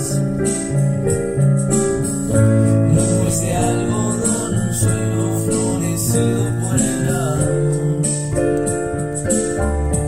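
A song with a keyboard playing held chords over a steady low bass line.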